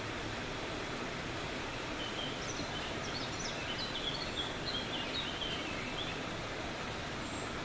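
Steady rush of flowing water, with a run of short, high chirps from about two to six seconds in.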